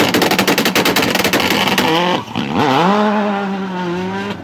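Sports car exhaust crackling and popping in a rapid volley for about two seconds. Then the engine revs up and holds a steady note.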